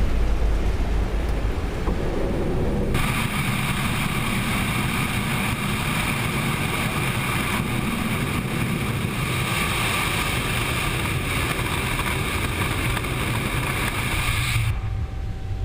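Boeing 777F's GE90 jet engines and rushing airflow during the initial climb after takeoff: a loud, steady roar. It is heavier and deeper for the first three seconds or so, then cuts abruptly to a thinner, hissier rush, and the sound changes abruptly again near the end.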